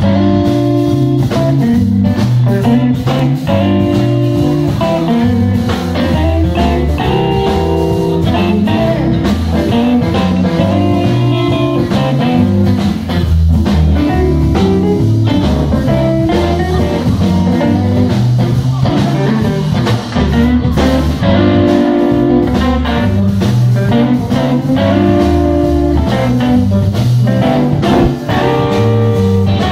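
Live electric blues band playing an instrumental passage: electric guitar phrases over a stepping bass guitar line and a drum kit.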